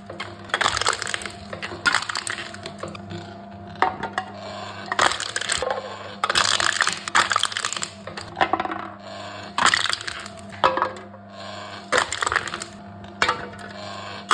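Aluminium drink cans being crushed by a machine: about a dozen irregular crackling, crunching bursts of buckling metal over a steady low hum.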